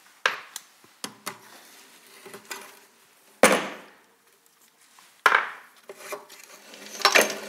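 Sharp metallic knocks and clatter of a hand tool working on a speedway motorcycle's rear wheel, sprocket and chain as the bike is dismantled. There are several separate knocks; the two loudest, about three and a half and five seconds in, each trail off in a brief rattle, with a quick cluster near the end.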